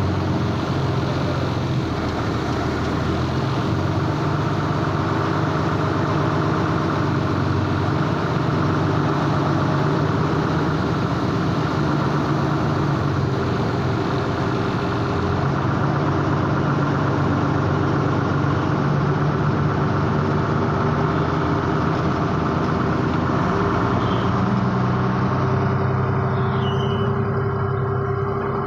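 A vehicle engine running steadily, its drone sitting under a broad, even hiss.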